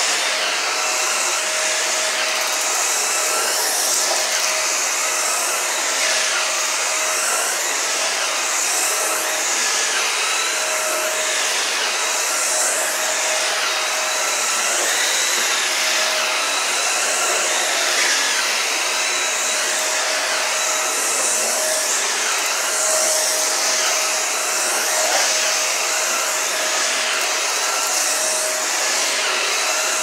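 Shark Duo slim upright vacuum cleaner running on carpet: a steady motor whine with rushing air, swelling and fading every second or two as it is pushed back and forth.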